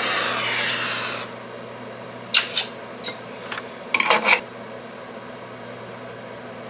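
Jeweller's soldering torch hissing, dying away about a second in. A few short clicks and scrapes follow, the loudest pair about two and a half and four seconds in.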